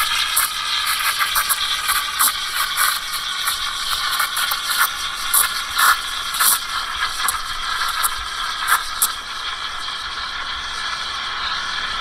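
Steam wand of a Petrus PE3320 espresso machine, its large frothing tip removed, frothing milk in a stainless steel pitcher: a steady hiss with crackling, sputtering chirps as air is drawn into the milk, settling to a smoother hiss about three-quarters of the way in as the milk rolls.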